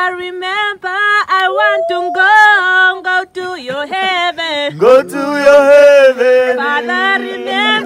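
People singing together without words the recogniser could catch: a man's voice carries the tune and a second voice joins in, holding long notes together from about halfway through.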